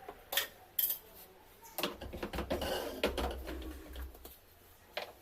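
Irregular sharp clicks and light knocks, with a denser clatter and a low rumble between about two and four seconds in.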